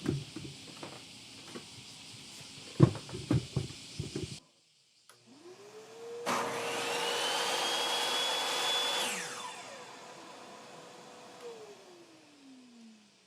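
A few knocks and clatter, then a DeWalt 7485 jobsite table saw is switched on: its motor spins up with a rising whine, runs steadily for about three seconds, then is switched off and winds down with a falling whine.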